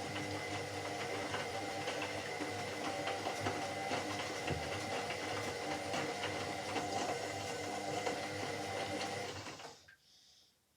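Washing machine motor turning the drum at a steady speed, a whine with light clicking, then stopping suddenly about a second before the end.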